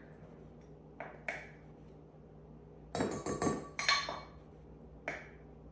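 Metal measuring cup clinking against the inside of a large glass jar while powdered sugar is scooped out. Two light knocks come about a second in, then a quick run of ringing clinks around three seconds in, and one more near the end.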